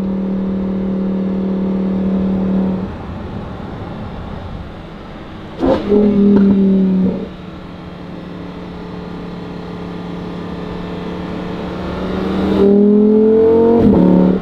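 Lamborghini Huracán's V10 engine revving. A steady engine note drops away about three seconds in, a short loud rev comes about six seconds in, and near the end a rising rev cuts off sharply.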